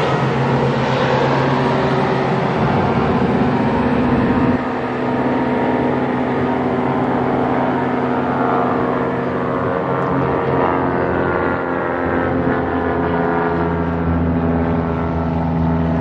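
An engine running steadily, a low drone with a stack of even tones; it drops a little in level about four and a half seconds in.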